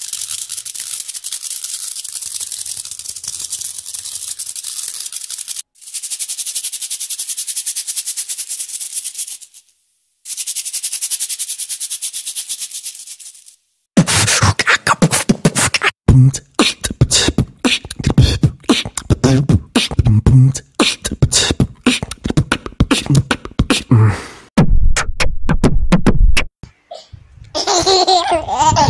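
A shaker rattling in three long shaking runs, each several seconds long, with brief pauses between them. About halfway through it gives way to a fast beatbox-like rhythm of sharp clicks and low thumps. Baby laughter starts near the end.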